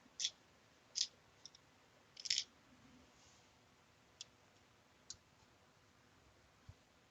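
Scattered small sharp clicks and taps of M3 screws and parts being handled during assembly: four or five in the first few seconds, then a few single ticks spaced out, with one dull knock near the end.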